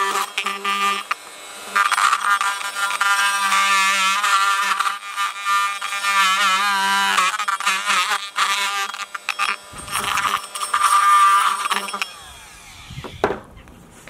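Oscillating multi-tool buzzing as its blade cuts away the plastic inside a car alarm siren's case, its pitch wavering as the blade bites. It eases off briefly about a second in and stops about twelve seconds in, leaving only quiet handling.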